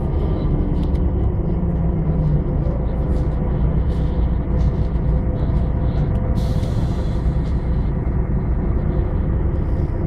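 City bus heard from inside the cabin while driving: a steady low rumble of engine and road noise, with a short hiss about six seconds in.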